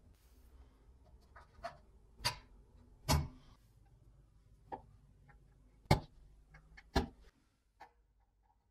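Sharp metallic clicks and knocks as a steel rule and a steel square are set down and shifted against a steel plate on a wooden bench, about seven separate taps a second or so apart, the loudest two in the second half.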